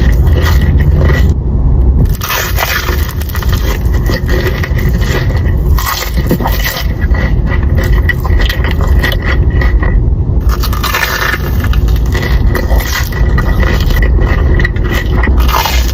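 Close-miked chewing and crunching of a Korean corn dog: the fried, sugar-coated batter crackles irregularly with each bite and chew.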